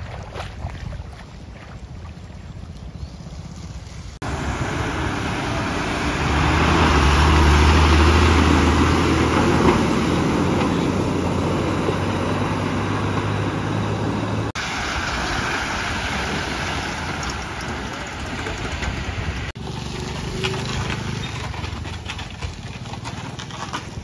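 Stream water rushing across a road in a steady noisy wash, heard in several short cuts. Through one stretch a vehicle engine's low hum runs under the water noise.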